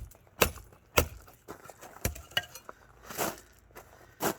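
Hammer blows on a steel locomotive chassis frame resting on an anvil, knocking the bent frame back into square: two sharp metallic strikes in the first second, lighter knocks after, and another sharp strike near the end.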